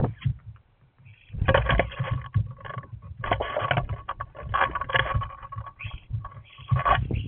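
European starlings jostling on a seed feeder right by the microphone: irregular bursts of wing flutters, scrabbling claws and knocks against the feeder, with short clicks throughout.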